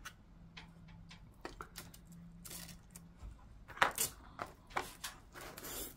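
Quiet, scattered clicks and short rustles of eating pizza at the table, with bites and the handling of slices and tableware, over a faint low hum.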